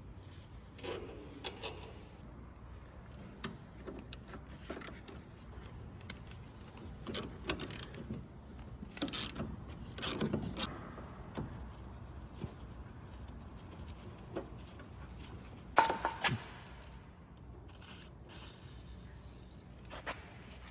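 Hand tools and metal parts being handled while a car's steering column is removed: scattered clinks, knocks and scraping rubs with pauses between them. The loudest is a pair of sharp knocks about sixteen seconds in.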